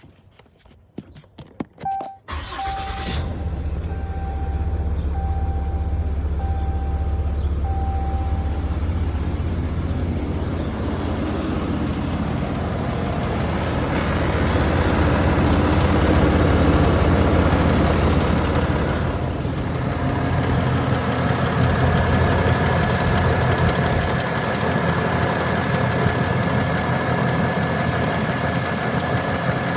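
A 2021 Ram 2500 pickup's engine starts about two seconds in and then idles steadily, recorded for a ticking noise from the engine. An electronic chime beeps repeatedly for several seconds just after it starts.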